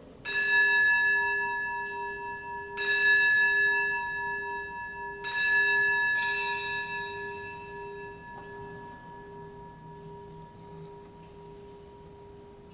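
Altar bell rung at the elevation of the chalice during the consecration. It is struck three times about two and a half seconds apart, with one more strike soon after, and the ringing fades away slowly.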